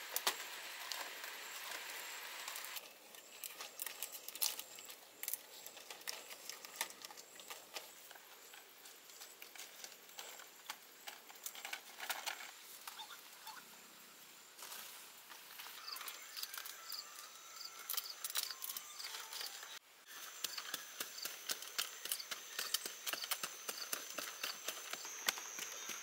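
Irregular knocks, taps and rustling from hands working bamboo poles and stiff fan-palm-leaf roofing and from digging in soil, with a steady high insect drone behind, strongest near the end.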